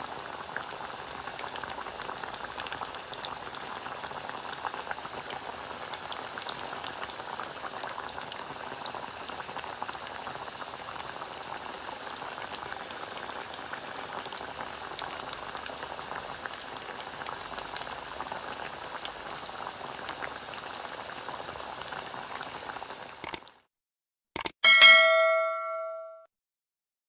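Hot cooking oil bubbling and crackling, a steady sizzle full of small pops, which stops abruptly near the end. A short bell-like chime follows and rings out.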